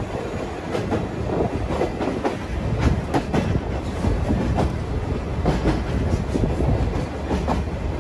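Sagano sightseeing trolley train running, heard from its open-sided car: a steady rumble of steel wheels on the rails with frequent clicks and knocks from the track.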